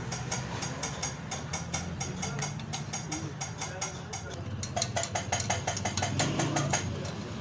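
Rhythmic metallic ticking, about five or six a second, over a low steady hum. The ticks grow louder and ring sharper from about five seconds in.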